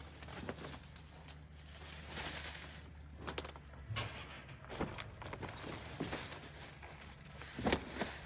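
Handling noises from the unboxed metal battery rack cabinet and its packaging: scattered short knocks, clicks and rustles, with one louder knock near the end. A steady low hum runs underneath.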